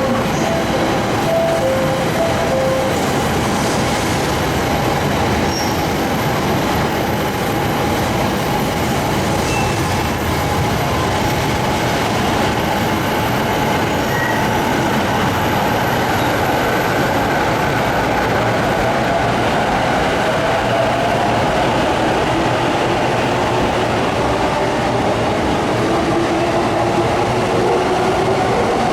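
Electric commuter train running through the station at close range: a loud, steady rumble of wheels on rails, with a motor whine that slowly shifts in pitch in the second half.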